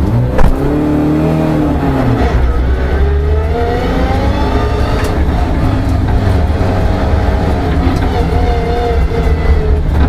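Peugeot 306 rally car's engine heard from inside the cabin, pulling along a gravel track at moderate revs: the revs rise, drop about two seconds in, rise again and then hold steady. A sharp knock sounds about half a second in.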